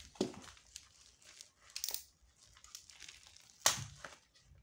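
Plastic packaging crinkling and tearing as gloved hands pull it off a parcel, in a few short scrunches with the loudest about three and a half seconds in.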